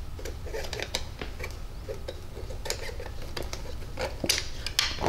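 Light metallic clicks and clinks of a piston ring being spread with small ring pliers and worked into the grooves of a John Deere B piston, with two sharper clinks near the end.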